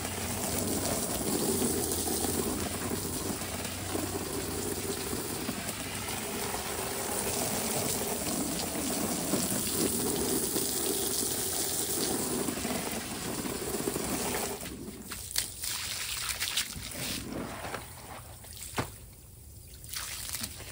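Garden hose spray splashing steadily onto a slotted plastic pool filter cylinder and wet concrete, washing dirt out of it. The spray stops about two-thirds of the way through, followed by a few short knocks.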